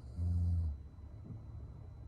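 A young woman snoring in her sleep: one short, low snore of about half a second near the start, over a steady low background hum.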